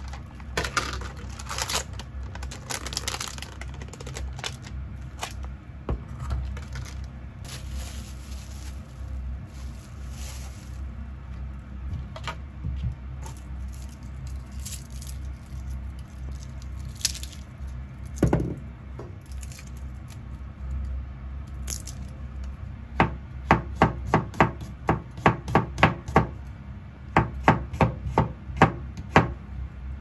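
Kitchen knife chopping garlic on a plastic cutting board: a run of quick, sharp knocks, about three to four a second, starting near the end. Before it come irregular rustling and handling noises, over a steady low hum.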